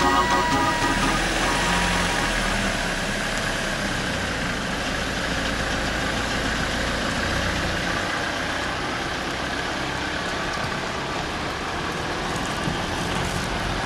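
Ford Transit minibus engine idling steadily, with a low hum that drops away about eight seconds in. Electronic music fades out in the first second.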